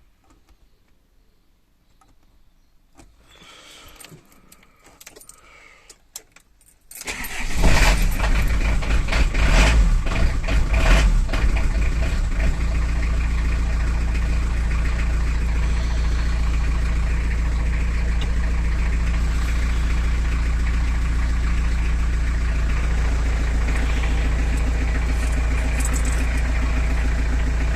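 Citroën C25 van engine being started: faint clicks and rattles, then about seven seconds in the engine catches and runs unevenly for several seconds before settling into a steady idle.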